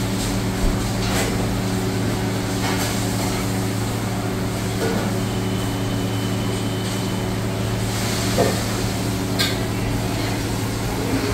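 Steady low mechanical hum of kitchen ventilation fans, with a few light knocks and clinks from work at the griddle scattered through it.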